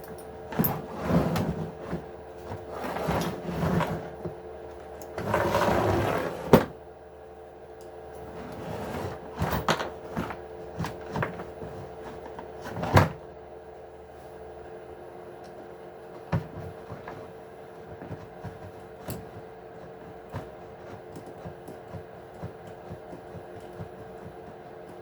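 Hand disassembly of an RC rock-crawler truck: scattered clicks, rustling and knocks as small parts and tools are handled, with sharp knocks about six and thirteen seconds in and sparser light ticks after. A steady hum runs underneath.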